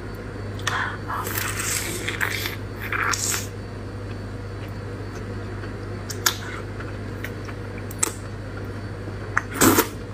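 Wet squelching and slurping as soft braised eggplants in chili sauce are sucked into the mouth and chewed. A run of wet bursts fills the first few seconds, then come a few scattered sharp lip smacks and a louder slurp near the end, over a steady low hum.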